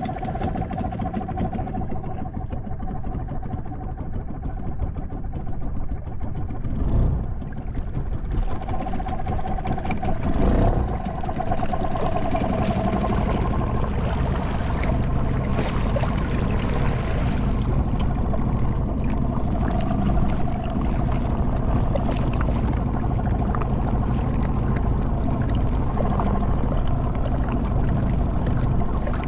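Motorboat engine running steadily, with two brief louder noisy surges about a third of the way in.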